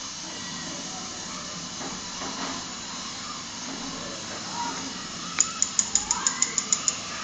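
Steady hiss of water boiling in a metal pot with marble tiles in it. Near the end comes a quick run of about a dozen sharp clicks, about seven a second.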